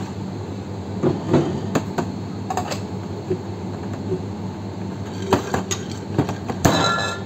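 Knocks and clinks of a stainless steel cocktail shaker with ice and bottles being handled on a bar counter, ending with a loud ringing metal clank as the shaker's cap is fitted on.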